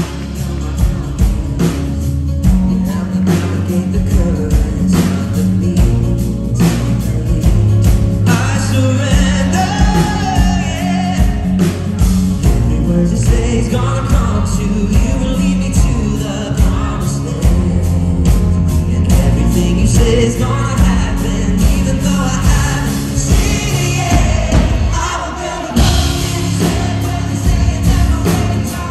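Live band music with a male lead singer singing into a handheld microphone over a steady drum beat, through a concert PA.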